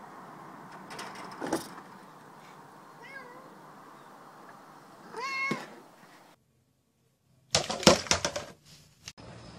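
A cat meowing: a short call about three seconds in and a louder, bending meow about five seconds in. After a brief break, a quick run of loud knocks and clatter near the end.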